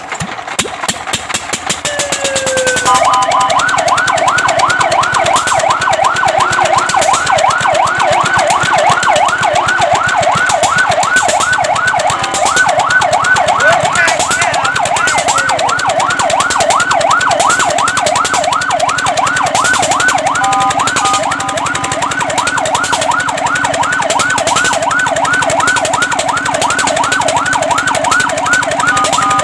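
Fire truck siren wailing in a fast yelp, its pitch sweeping up and down about four times a second. It winds into the yelp about three seconds in and breaks briefly into a steady two-note tone about twenty seconds in.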